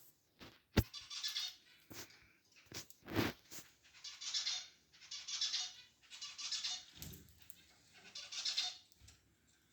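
Pet birds giving a run of harsh, hissy calls, about one a second, with a few sharp clicks in the first few seconds.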